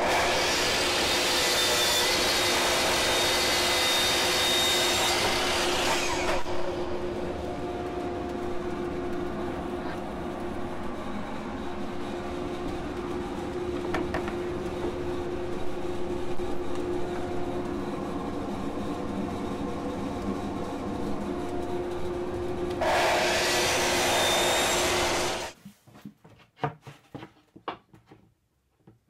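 Makita sliding miter saw cutting through a wide plywood panel: a loud cut of about six seconds, then a second, shorter cut near the end, both over the steady drone of a Delta dust collector. Everything stops suddenly about 25 seconds in, leaving only faint knocks of the panel being handled.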